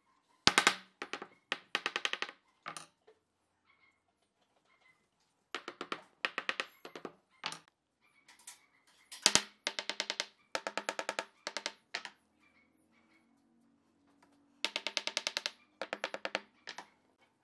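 Wooden mallet tapping small wooden blocks into place against a wooden rail, in quick runs of light knocks with pauses between.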